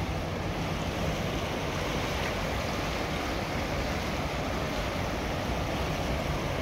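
Flood-swollen river rushing past the bank and pouring over a weir: a steady rush of water, with some wind buffeting the microphone.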